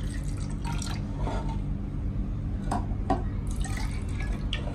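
Water poured from a plastic bottle into tall LED light-up drinking glasses, in short irregular splashes and trickles.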